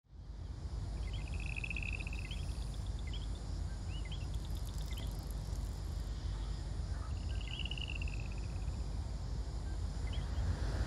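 Night-time nature ambience: a steady low rumble like wind, with an insect trilling twice for about a second and a half each and a few short chirps in between.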